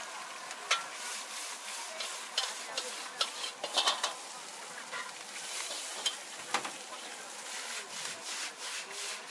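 Stir-frying in a wok over a high gas flame: a metal spatula scraping and knocking against the wok in irregular strokes over a steady frying hiss.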